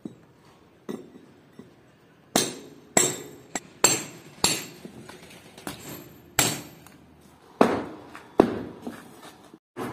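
Hammer blows on a low brick wall that is being knocked apart, about one to two sharp strikes a second, each with a short metallic ring. The strikes start softly and grow louder from about two seconds in.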